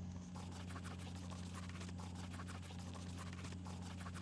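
A fingertip rubbing and scratching across a Telestrator touchscreen as it writes, a dense run of quick scratchy strokes starting about half a second in, over a steady low hum.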